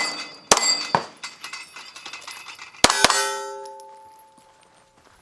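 Pistol shots from a Glock 19X, 9mm, hitting steel targets, each hit clanging: a couple of shots in the first second, then two quick ones about three seconds in. After the last pair a steel plate rings on for about a second and a half.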